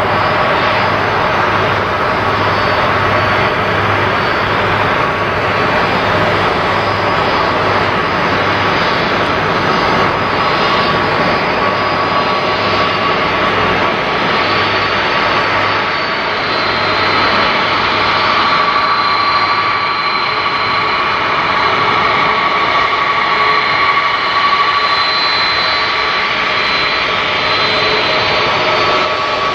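Airbus A330-300's Pratt & Whitney PW4000 turbofans running with a steady jet whine as the airliner taxis.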